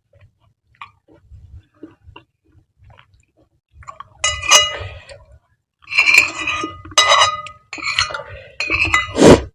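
Soft chewing for the first few seconds, then utensils clinking and scraping against dishware in several loud spells with a ringing tone, ending in a heavier knock.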